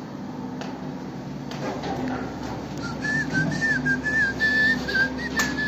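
A person whistling a short wavering tune, starting about halfway through, over a steady low hum and a few light knocks.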